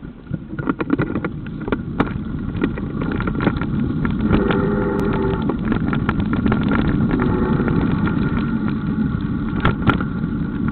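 Mountain bike rolling over a gravel track: a steady rumble of tyres on loose stones, with many small clicks and rattles from the stones and the bike.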